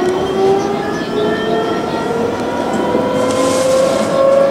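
Electric tram's traction motors whining as it runs along the track, the pitch rising slowly as it picks up speed. A hiss joins in about three seconds in.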